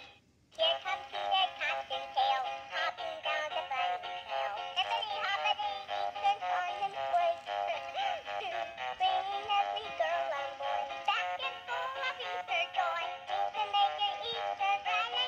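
Singing plush bunny toy playing its song through its small built-in speaker: a children's tune with a synthesized singing voice, thin with little bass. The sound drops out briefly just after the start, then the song carries on.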